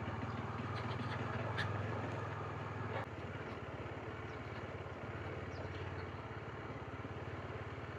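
Motorcycle engine running steadily at low speed, a low even drone with a fast regular pulse that eases slightly about three seconds in.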